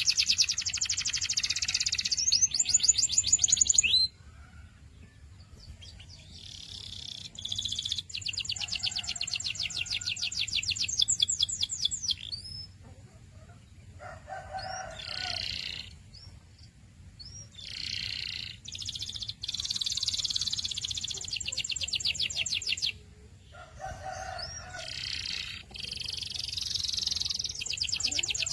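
Domestic canary singing: fast trilled rolls of rapidly repeated high notes, in phrases separated by short pauses of a second or two.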